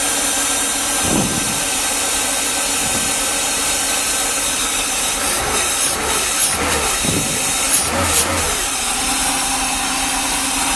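Mercedes V8 engine with a freshly rebuilt mechanical fuel distributor idling steadily, running really nice with all eight cylinders firing. A few brief knocks and rustles sound over it in the middle.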